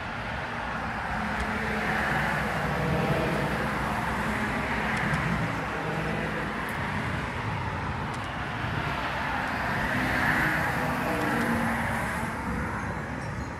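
Road traffic: two vehicles pass by one after the other, their tyre and engine noise swelling and fading. The first peaks about two seconds in, the second around ten seconds.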